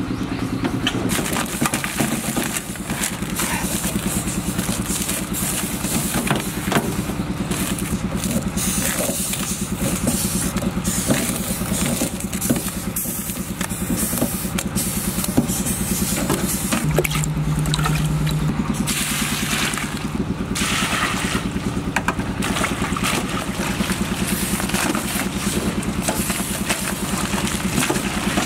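A small motor running steadily with a low, even hum, with scattered sharp clicks and knocks over it.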